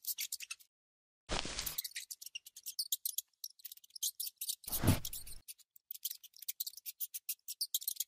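Rapid dry clicking and scratching, with two short, louder bursts that carry a low thud, about a second and a half and five seconds in; the second burst is the loudest.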